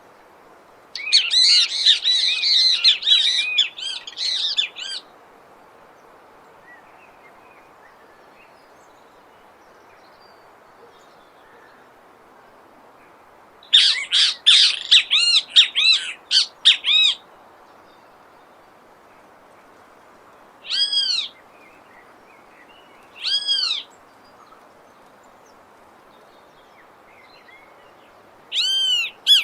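Bem-te-vi (tyrant flycatcher) calling in repeated bouts of harsh, arched notes. There is a long bout about a second in, another in the middle, two single calls after that, and a new bout starting near the end, all over a faint steady background hiss.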